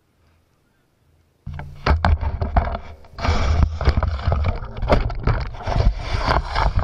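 Near silence, then about a second and a half in, loud handling noise on the camera's own microphone: rubbing and scraping with a low rumble and many sharp knocks as the camera is moved.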